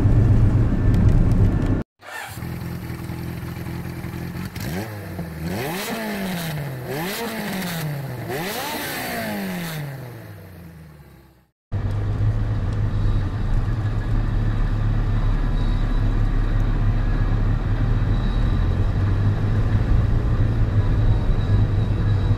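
Car driving, heard from inside the cabin: a steady low rumble of engine and road noise. In between, after a cut, comes a passage in which an engine's pitch swoops up quickly and falls off more slowly, several times over, then fades away before the cabin rumble returns.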